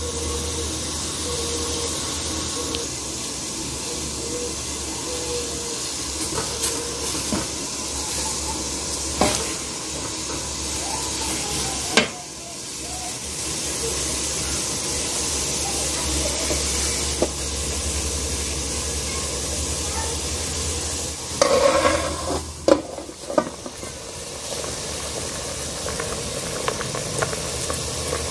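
Water at a rolling boil in a metal pot with petai pods in it, a steady bubbling hiss. A few sharp clicks and knocks against the pot, with a short burst of clatter about three quarters of the way through.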